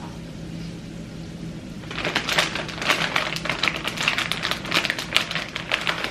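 Plastic bag of rotisserie chicken crinkling and crackling as a hand reaches in and pulls out a piece, a dense run of crackles starting about two seconds in.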